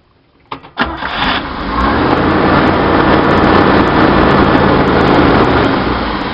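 Chevy 230 inline-six engine with a Weber 32/36 two-barrel carburetor starting after a brief crank, about a second in, then running fast and steady, its level swelling through the middle and easing near the end. The high revs are most likely from a vacuum leak at the extra 1bbl-to-2bbl adapter gaskets.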